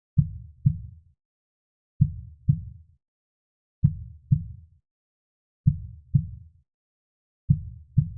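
Slow heartbeat sound: five evenly spaced pairs of low, dull thumps (lub-dub), each pair a little under two seconds after the last.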